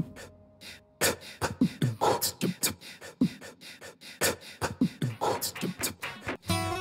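Percussive soundtrack music: after a near-silent second, a sparse rhythm of sharp clicks and short deep thuds that drop in pitch, in the manner of beatboxing.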